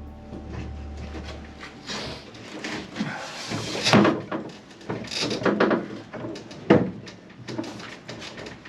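Scattered knocks, bumps and scrapes of wooden wall panels and battens being handled and test-fitted, with the sharpest knocks about four, five and near seven seconds in.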